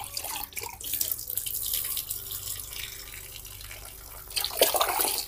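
Water poured from a plastic dipper over a baby monkey held above a bucket, splashing and trickling back into the bucket, with a louder splash near the end.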